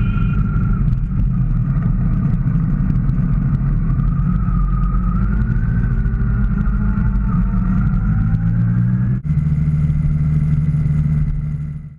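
Motorcycle engine running at road speed, its note drifting up and down in pitch. About nine seconds in, the sound breaks off abruptly and resumes changed, then fades out at the very end.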